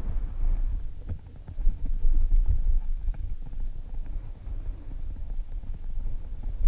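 Mountain bike riding fast down a loose dirt trail, picked up by a helmet-mounted camera: a steady low rumble of tyres over dirt and stones, with many small knocks and rattles from the bike and wind buffeting the microphone.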